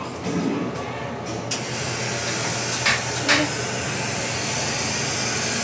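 Espresso machine steam wand hissing steadily, starting about a second and a half in, with two light clicks in the middle.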